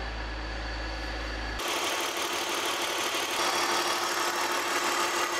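BMW E46 330i's inline-six idling steadily. About a second and a half in, the sound changes abruptly from a low hum to a brighter, hissier idle with a steady tone.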